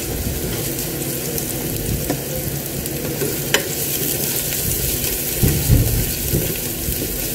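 Food sizzling steadily in a hot pan with garlic and onion, stirred with a utensil: a sharp clink about three and a half seconds in and a few soft knocks near the end.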